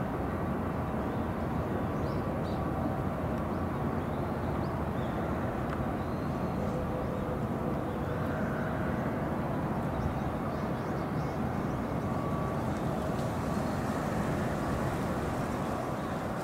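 Steady low rumble and hiss of outdoor ambience, with faint high chirps scattered through.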